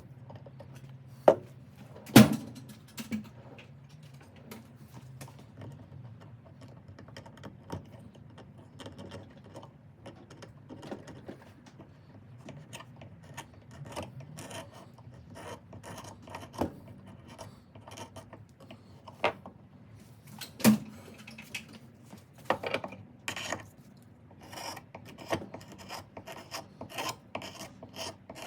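Hand-worked scraping of the soft grip material on a ratchet handle: irregular rasping strokes broken by a few sharp knocks, the strokes becoming quicker and more regular near the end.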